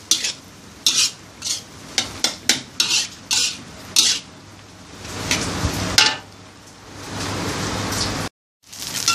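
Metal spatula scraping and tossing fried rice around a steel wok in a run of quick strokes, with the rice sizzling underneath. The sizzle gets louder and steadier about five seconds in, then cuts out suddenly near the end.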